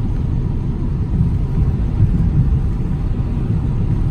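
Steady low rumble of a car driving on a rain-soaked road, heard from inside the cabin.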